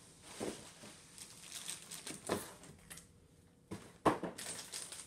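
Handling noise: packaging rustling, with four sharp knocks as parts are picked up and set down, the loudest about four seconds in.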